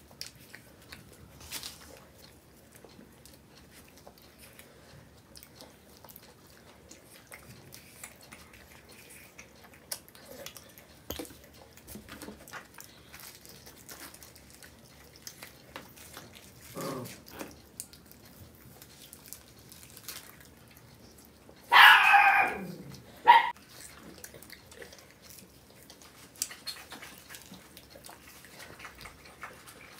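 A dog barking twice in the room: a longer bark about two-thirds of the way in, then a short one right after, with a softer yip a few seconds earlier. Faint crinkling of ice-cream wrappers and eating clicks fill the rest.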